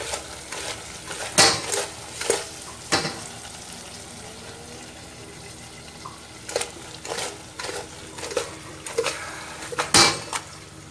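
A spoon stirring marinated mutton and onions in an open pressure cooker, knocking and scraping against the metal pot. A run of sharp clinks is followed by a lull of a few seconds, then more clinks, over a steady frying sizzle.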